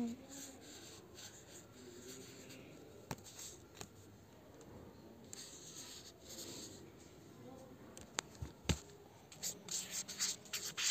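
Pen writing on paper: soft scratchy strokes of a marker tip as words are written, with a few sharp clicks and a busier run of strokes near the end.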